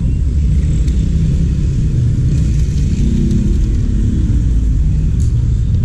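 Loud, steady low rumble of outdoor background noise, with a faint engine-like drone rising and falling about halfway through.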